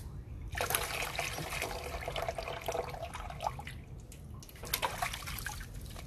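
Water running and splashing: a steady rush that starts about half a second in and thins out after about three and a half seconds, leaving scattered small splashes, over a low steady hum.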